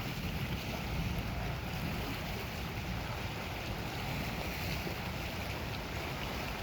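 Steady wind and Lake Superior waves washing on the shore, with wind rumbling on the microphone.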